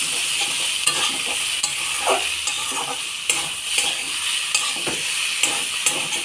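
Banana flower, rice and spice paste sizzling in a kadai while being stirred, the spatula scraping and tapping against the pan in irregular clicks. This is the masala being sautéed (koshano) until the spices are cooked through.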